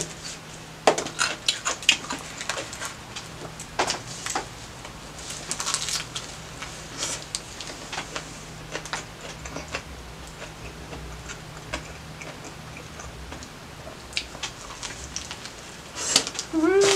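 Close-miked chewing of a Subway steak and cheese sub: irregular wet mouth clicks and soft crunches of the bread. Near the end comes a fresh bite and a short hummed "mm".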